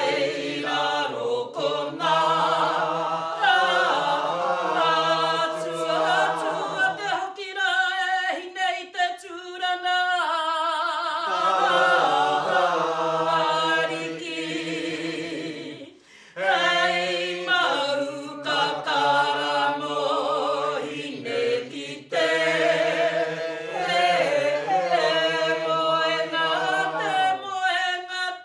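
Māori mōteatea (traditional chanted song) sung unaccompanied by a group of men and women in unison, a long, slow, held melody that pauses briefly for breath twice in the second half.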